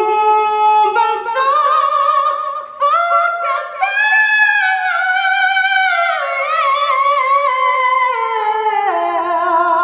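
A single voice singing high, drawn-out operatic notes with vibrato, climbing over the first few seconds and stepping back down near the end: a comic sung interlude.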